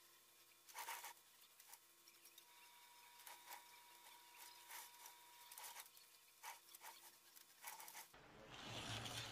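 Aerosol spray-paint can hissing in many short, faint bursts over near silence, with a longer, louder hiss near the end.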